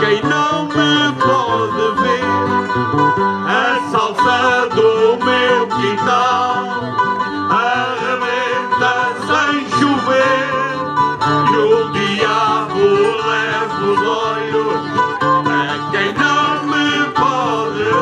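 A live song played on plucked string instruments, with singing that wavers in pitch over a steady accompaniment.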